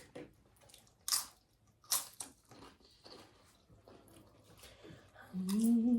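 Close-miked chewing and mouth smacks of a person eating, with sharper crunchy bites about one and two seconds in. Near the end comes a hummed 'mmm' of about a second.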